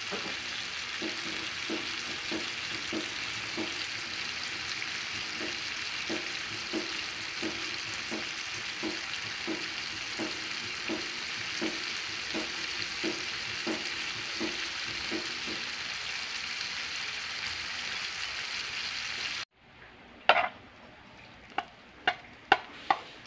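Pork pieces sizzling steadily as they fry in their own rendered fat in a nonstick frying pan. The sizzle cuts off about three-quarters of the way in, followed by a few sharp metal clanks of a pan and lid being handled.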